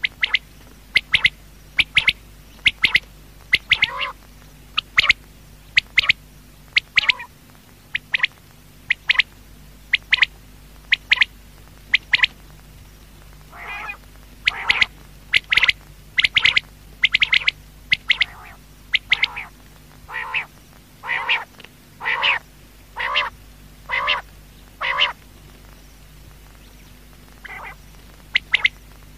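Quail calling: short, sharp calls repeated about once or twice a second, some in quick pairs, over a faint steady low hum.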